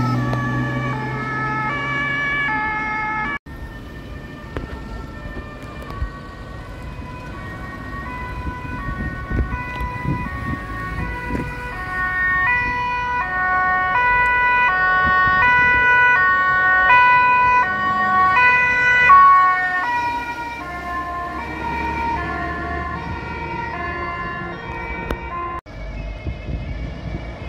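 German two-tone emergency-vehicle siren (Martinshorn) on Technisches Hilfswerk trucks, stepping back and forth between two notes, at first close by over the truck's engine. After a cut about three seconds in, the siren is farther off, grows louder to a peak near the end of the second third and then fades again.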